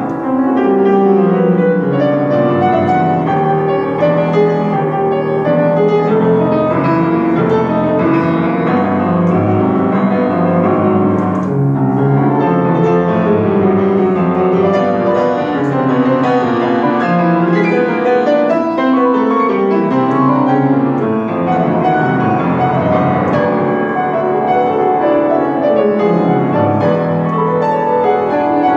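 Solo grand piano played continuously: dense chords and running figures, with runs that sweep down into the bass and back up a few times.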